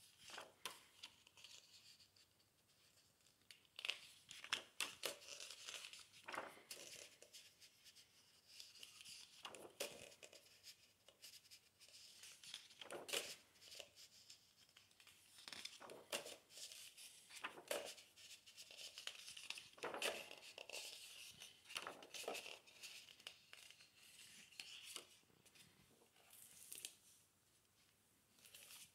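Paper pages of a large hardcover book being turned and flipped by hand: a series of faint, brief rustles and swishes.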